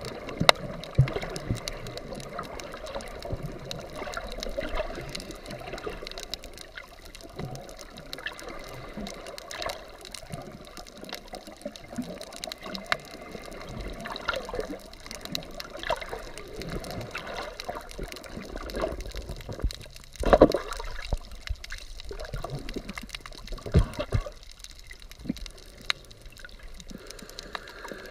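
Underwater sound heard through a GoPro in its waterproof housing: a muffled wash of moving water with many scattered small clicks and a few louder knocks, the strongest about 20 seconds in and another near 24 seconds.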